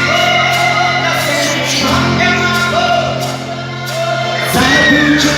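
Live band music with a voice singing a long held melody over steady bass notes; a new sung phrase comes in about four and a half seconds in.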